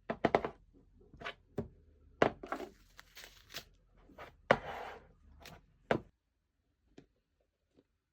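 Slime being pressed and squeezed by hand: a run of sharp clicks and pops with short squishy stretches, dying down about six seconds in to a few faint clicks.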